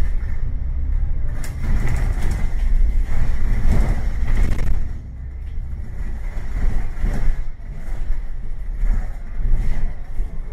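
City bus running, a steady low engine rumble with irregular rattles and knocks.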